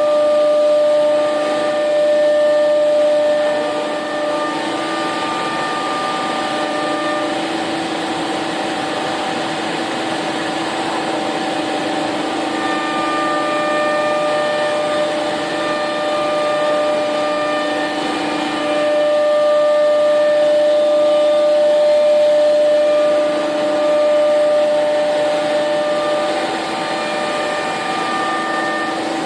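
SCM Accord 20 CNC router running: a steady machine hum and whine made of several held tones over a rushing noise, with some tones dropping out and coming back and the level swelling a little a few times.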